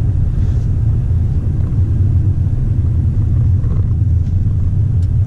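Steady low rumble of a Mercedes-Benz A200 (W177) driving, heard inside the cabin: road and engine noise.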